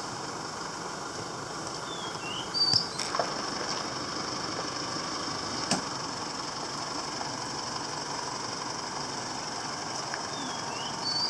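Steady outdoor background of a high insect buzz and a few short bird chirps over a low, even rumble, with a couple of faint clicks.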